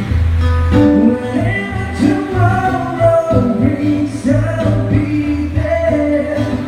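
Music: a song with a singing voice over a steady low bass line.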